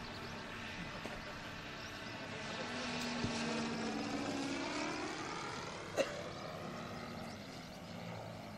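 Radio-controlled aerobatic model airplane's engine and propeller droning in flight, growing louder as it passes about halfway through and then fading. There is a single sharp click about six seconds in.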